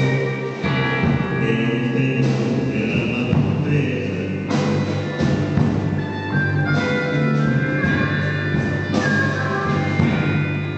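A blues band playing, with held melodic notes over a steady low bass line.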